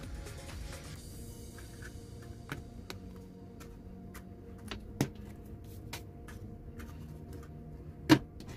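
Clear plastic lids being pressed and snapped onto disposable plastic cups: a scatter of sharp clicks, with louder snaps about five seconds in and near the end.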